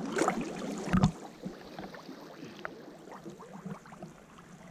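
Water sloshing and dripping as a trammel net is hauled in by hand, with two louder splashes in the first second, then smaller drips and trickles.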